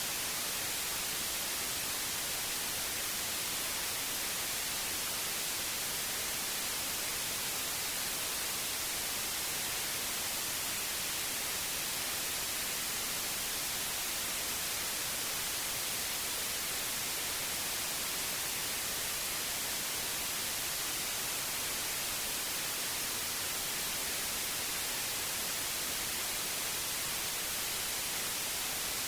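Steady white noise: an even hiss, strongest in the high frequencies, unchanging throughout.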